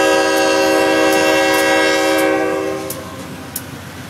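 Freight locomotive's air horn sounding one long steady chord of several notes, which cuts off about two and a half seconds in. After it, freight cars rumble past with a sharp click of wheels over the rail joints.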